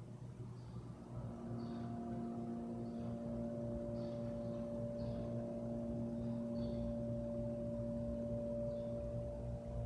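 A ringing drone of several steady tones at different pitches fades in about a second in and holds, over a low hum.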